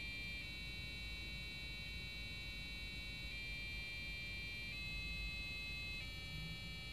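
Piezoelectric buzzer from an old dial-up modem, driven by a PIC microcontroller's square wave, playing steady tones that step to a new note about every second and a half as it runs up a major scale. The scale is a little bit off, with the half steps about 10% out, because the pitch is set by a delay loop without enough resolution.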